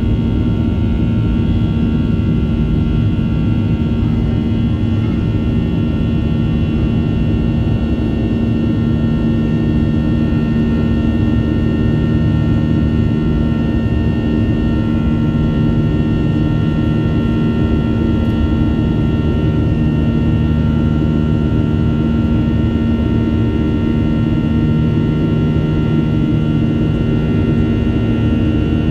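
Cabin noise of a Boeing 737-800 climbing out after takeoff: the steady loud rumble of its CFM56-7B jet engines and the air rushing past the fuselage, with several steady humming tones over it.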